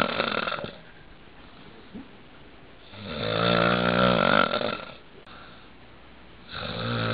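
A man snoring in a slow rhythm: one snore trails off at the start, a full snore of about two seconds comes in the middle, and the next begins near the end, with quieter pauses between.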